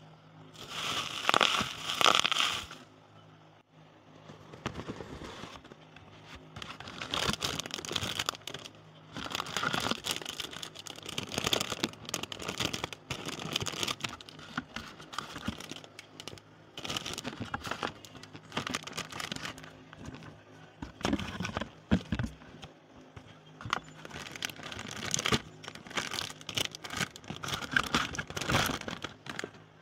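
Clear plastic bags crinkling and rustling, with paper handled, as hands unpack a plastic model kit's parts runners. The crinkling is loudest about one to two seconds in, then goes on in bouts with many small crackles.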